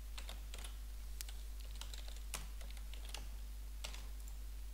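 Computer keyboard typing: a dozen or so irregular key clicks, over a steady low hum.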